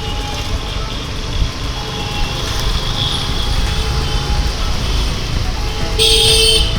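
Road traffic with a steady low rumble of passing vehicles, and a vehicle horn sounding briefly and loudly near the end.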